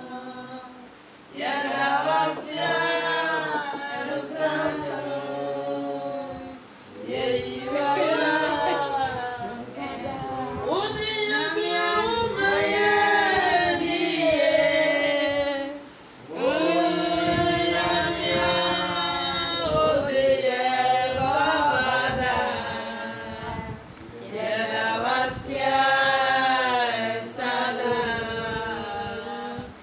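A group of voices singing together without instruments, in long phrases separated by short breaks.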